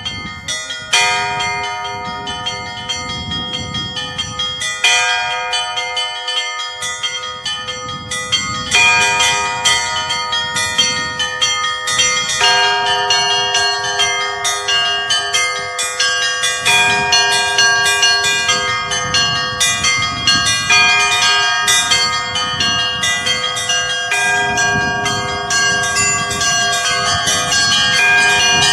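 Russian Orthodox chapel bells rung in a continuous peal. Small bells are struck rapidly, several times a second, over ringing tones, while a heavier bell stroke changes the chord about every four seconds.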